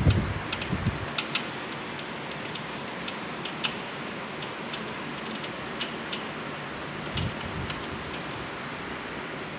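Irregular sharp metallic clicks, one or two a second, from a hand tool working a bolt as the apron is tightened back onto a lathe carriage, with a dull knock about seven seconds in, over a steady hiss.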